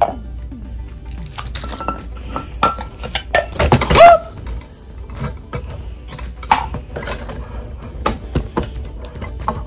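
Metal Poké Ball tin halves knocking and clinking as they are handled, with a series of short clacks. About four seconds in comes one loud metallic clang that rings on briefly.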